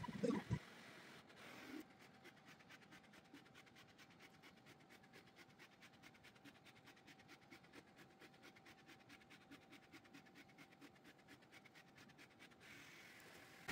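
Anycubic Kobra 2 Max 3D printer running its automatic bed levelling: a faint steady whine from its stepper motors with a rapid, even run of soft ticks as the print head and bed move. A couple of brief louder knocks come at the very start.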